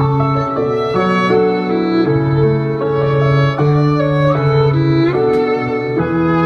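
Violin and contrabass duo playing a pop-style tune: a moving violin melody over long, low contrabass notes.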